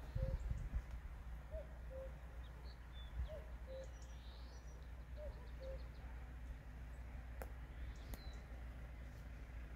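Birds calling: a low two-note call repeated four times in the first six seconds, with high chirps and twitters of small birds over a faint low rumble.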